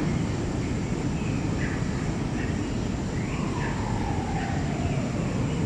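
Recorded forest soundscape played over loudspeakers: scattered bird chirps and one long falling call midway, over a steady low rumble.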